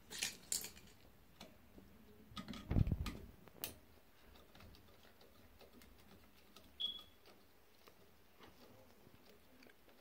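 Scattered small clicks and taps of hands and a screwdriver working wires onto the terminal screws of a 120 V/24 V HVAC step-down transformer, with a dull thump about three seconds in and a brief high squeak near seven seconds.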